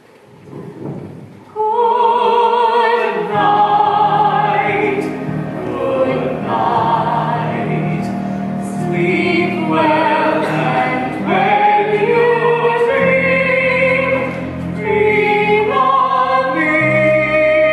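Soprano voice singing a slow, sustained melody with vibrato over orchestral accompaniment, coming in about two seconds in.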